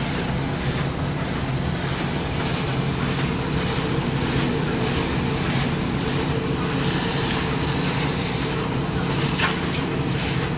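General Electric clothes dryer running, its drum turning on newly fitted, freshly greased plastic drum glides: a steady motor hum and drum rumble with no scraping, which the technician calls quiet. A few short hissing noises come in a little past the middle.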